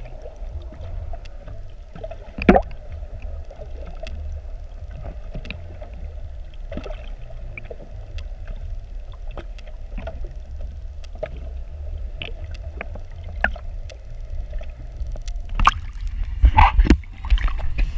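Sound recorded underwater by the camera: a steady low rumble with a faint hum and scattered short clicks, with one sharp knock about two and a half seconds in. Near the end come loud splashing and gurgling bursts as the camera comes up out of the water beside the boat's hull.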